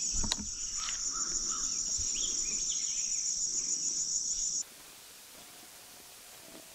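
Steady, high-pitched insect chorus that cuts off abruptly about two-thirds of the way through, leaving only a quiet background hiss.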